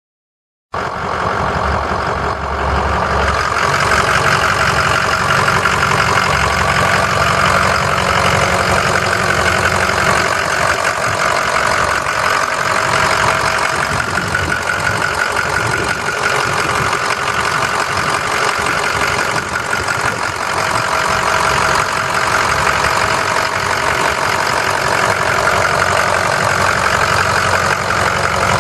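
Ford 6.0L turbo-diesel V8 of a 2006 F-250 Super Duty idling steadily, heard close up in the open engine bay. The sound cuts in abruptly less than a second in.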